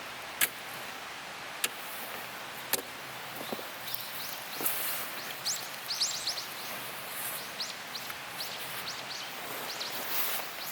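Wood fire burning with a steady hiss and three sharp crackling pops in the first few seconds. From about four seconds in, a run of short, high, rising chirps joins in.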